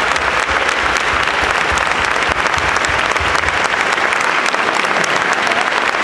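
Audience applauding, a dense, steady clapping that holds at an even level.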